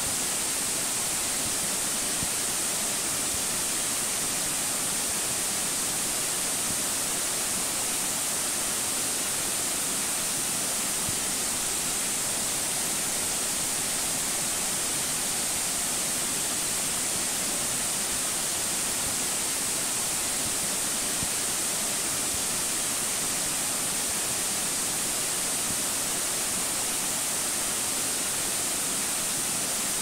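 Waterfall rushing steadily, water cascading over rock in an even, bright hiss, recorded on a phone's microphone.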